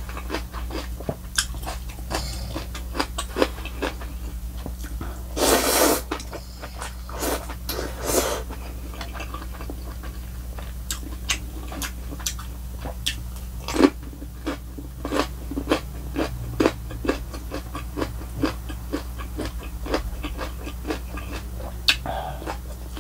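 Close-miked mukbang eating: wet, crisp chewing and crunching of kimchi and noodles, with many short sharp crunches throughout. Two longer slurps of somyeon noodles come about six and eight seconds in.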